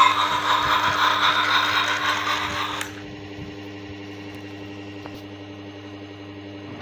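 A small toy electric motor whirring steadily, with light rattling ticks. A louder hissing, rushing sound runs over it and cuts off sharply a little under three seconds in.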